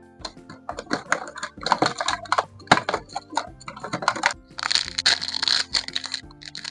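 Toy packaging being handled and opened: sharp plastic clicks and crackles, with a denser stretch of crinkling a little past halfway, over soft background music.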